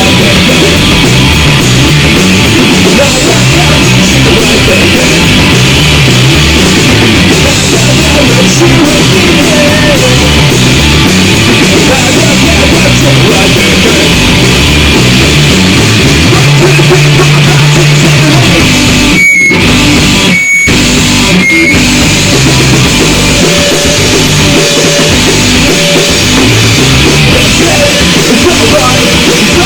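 Rock band playing live and loud, with electric guitar and drum kit; the music cuts out three times briefly about two-thirds of the way through.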